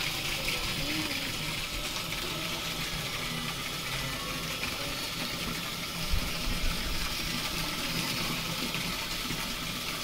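Well water gushing from a hose into a plastic drum as it fills, a steady splashing rush.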